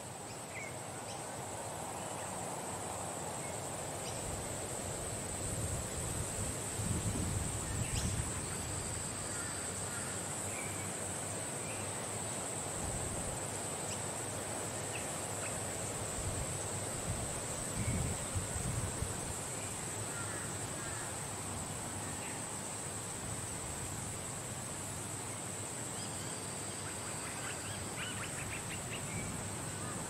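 Outdoor ambience in a palm garden: wind rumbling on the microphone in a few gusts, birds chirping now and then, and a steady high-pitched hiss underneath.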